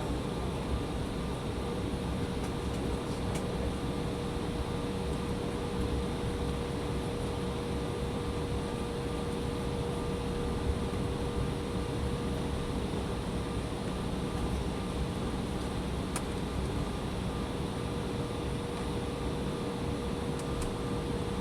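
Cabin noise of an Embraer 175 regional jet holding before takeoff: a steady hum of the idling jet engines and air-conditioning, with a constant mid-pitched tone running through it.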